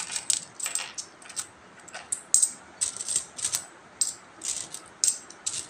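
Metal peso coins clinking as they are picked off a pile and stacked by hand while being counted: quick, irregular clinks, a few each second.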